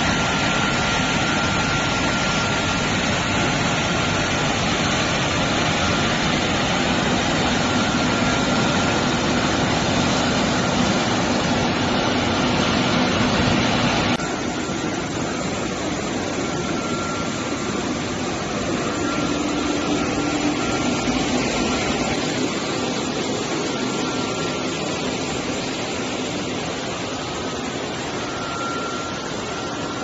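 Ginger washing machine running: water pouring and splashing over the motors as a dense steady rush of noise. About halfway through it cuts off sharply to a quieter, steady machinery hum.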